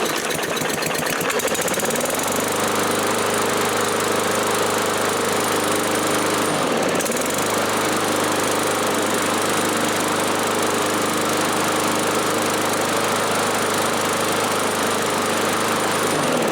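Troy-Bilt 21-inch self-propelled gas lawn mower engine running steadily just after starting. Its pitch dips briefly and recovers about seven seconds in.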